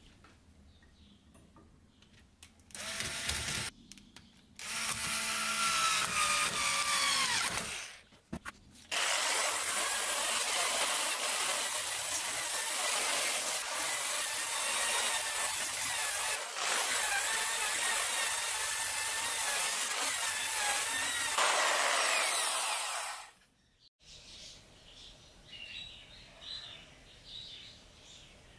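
Electric drill spinning a wire brush against a rusty steel file held in a vise, scrubbing off rust. A short burst, then a longer run that winds down, then a long steady run that fades out about three quarters of the way through.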